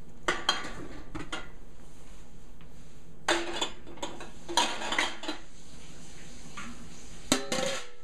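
Glass wide-mouth quart canning jars clinking against each other and the enamelware canning pot as they are handled in the hot water, in several short clusters of knocks. Near the end, the canner's enamel lid goes on with a louder clatter.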